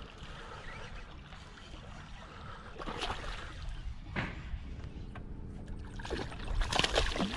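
Topwater lure splashing across the lake surface, then a hooked smallmouth bass thrashing and splashing at the surface. The splashing gets louder and busier over the last second or two as the fish nears the boat.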